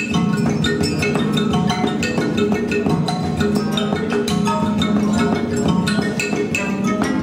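Music of struck tuned percussion: many short, ringing notes at different pitches, several a second, over a steady low drone.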